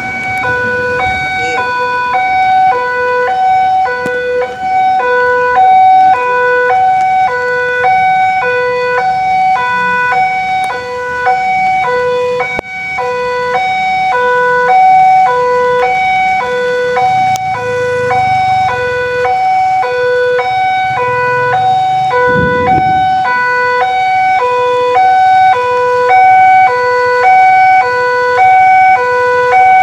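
Electronic railway level-crossing alarm sounding a steady two-note ding-dong that switches back and forth between two pitches in an even rhythm. It warns that a train is approaching and the crossing is closed.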